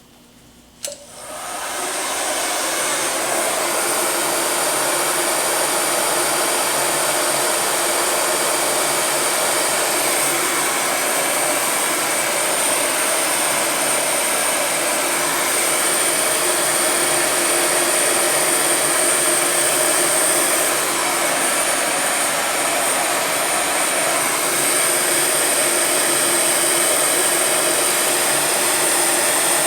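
Electric heat gun switched on with a click about a second in, then running steadily with a high fan whine, shrinking a gel-filled heat-shrink tube over a crimped wire splice.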